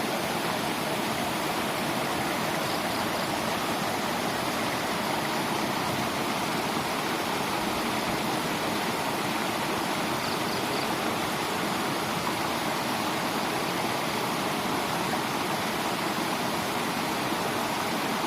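Steady rush of flowing floodwater, an unbroken noise of running water at constant level.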